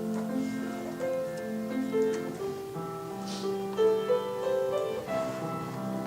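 Slow, quiet piano music playing held chords.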